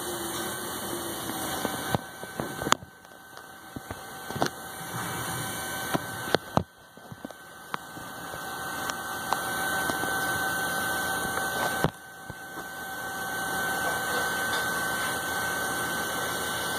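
Steady machine-shop hum with a faint whine, broken by a handful of sharp metallic clicks and knocks as parts are handled at the lathe.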